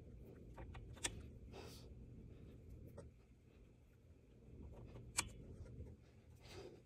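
Faint sounds of small objects being handled: two sharp clicks, about a second in and about five seconds in, with light rustling or scraping between them, over a low steady hum.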